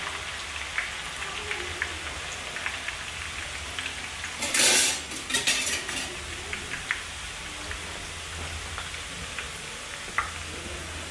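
Sliced onions deep-frying in hot oil in a pan: a steady sizzle with many small crackling pops as their moisture cooks out, and a brief louder hiss about halfway through.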